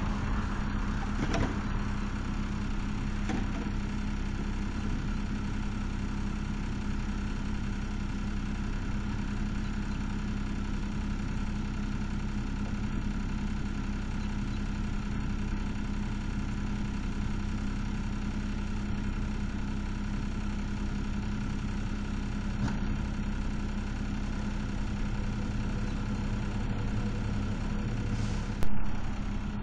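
An engine idling steadily, a constant low hum with no changes in speed. A brief louder noise comes about a second before the end.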